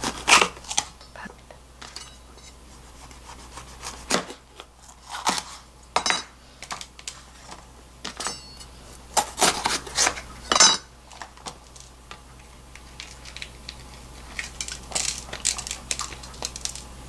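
A large kitchen knife cuts bell peppers on a plastic cutting board. It gives sharp, irregular knocks against the board and crisp cuts through the pepper, in short clusters with pauses between.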